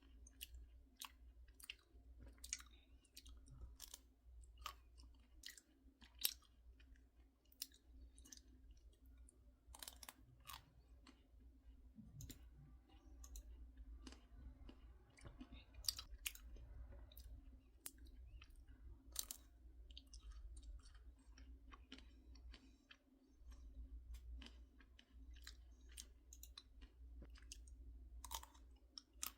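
A person chewing crunchy snacks close to the microphone: irregular crisp crunches and clicks, over a faint steady low hum.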